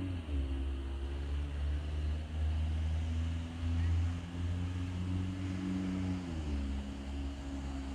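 A steady engine hum from a distant motor vehicle that drops slightly in pitch about six seconds in, over a low, fluctuating rumble.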